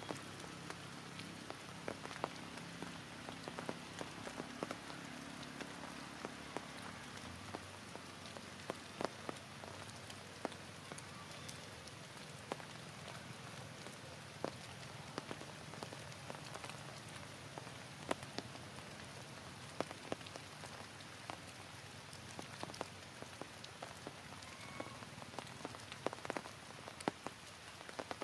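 Heavy rain falling steadily, a continuous hiss with many sharp drips and splashes of drops striking surfaces.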